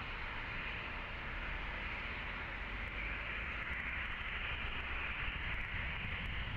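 Boeing 737 Next Generation's CFM56 turbofan engines running at taxi power, a steady jet hiss and whine over a low rumble that grows a little stronger partway through as the airliner turns on the runway.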